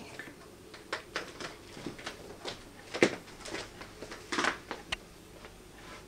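A few light knocks and rustles at irregular intervals, the loudest about three seconds in: handling noise from the camera as it is moved in close.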